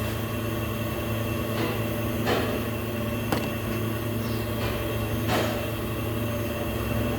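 A steady low mechanical hum, with about five sharp metallic clicks and knocks at irregular intervals over it.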